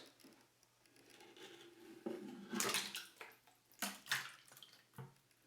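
Water sloshing and splashing in a tub as a small 3D-printed model tugboat is set in for a float test, with a few short splashes about two and a half, four and five seconds in.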